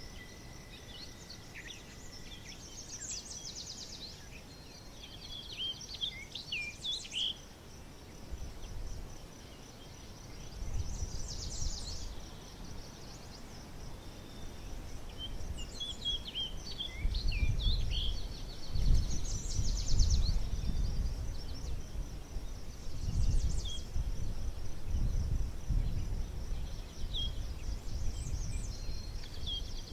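Outdoor countryside ambience: birds chirping on and off over a steady, high insect trill. A low, irregular rumble comes and goes in the second half.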